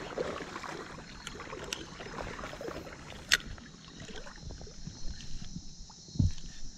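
Water sloshing and splashing, with scattered light clicks, one sharp click about three seconds in and a low thump near the end.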